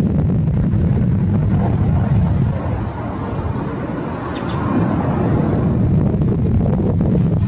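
Steady low rumble from the Boeing 747-8's engines as the jet is pushed back, mixed with wind buffeting the microphone.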